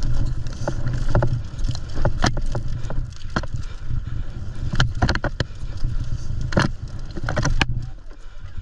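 Mountain bike ridden fast down a rough trail: a steady low rumble with many sharp clacks and knocks as the bike rattles over rocks and bumps.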